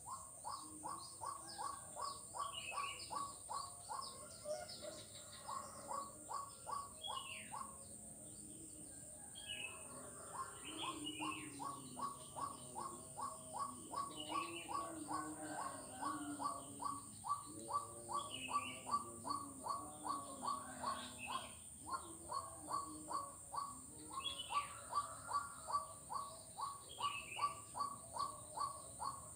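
A frog calling in a long, even series of short notes, about three a second, falling silent for a couple of seconds about a quarter of the way through and briefly twice more. Short falling chirps sound above it now and then.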